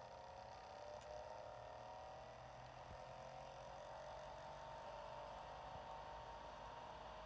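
Faint low hum with a faint whine of several tones that rises slowly and steadily in pitch, from a portable DVD player.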